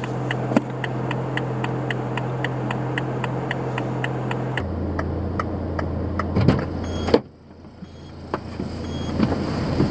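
Car engine idling with a steady low hum and a faint regular ticking, about three ticks a second. A sharp knock comes about seven seconds in, after which it is quieter.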